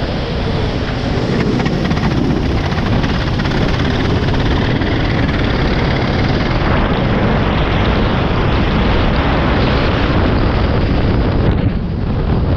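Go-kart engine running at speed, heard from an onboard camera, under a dense rush of wind and wet-track noise. The sound dips briefly near the end.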